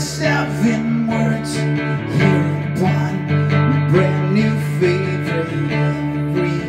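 A man singing into a microphone while strumming an acoustic guitar, his voice carrying the melody over the steady chords.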